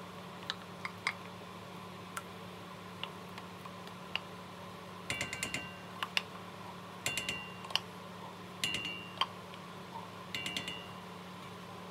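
A utensil scraping and clinking inside a small tin can to work tomato paste out. Scattered light clicks come first, then four short clusters of metallic scraping and clinks, each with a brief ringing tone, over the second half. A steady low hum runs underneath.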